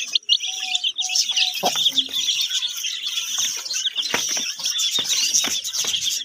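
A flock of chicks peeping, a dense run of many short, high-pitched peeps overlapping without a break, with a few shorter, lower notes in the first second and a half.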